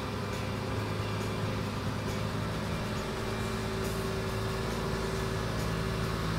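Lamborghini Gallardo's V10 engine running steadily at low revs as the car creeps slowly forward and turns.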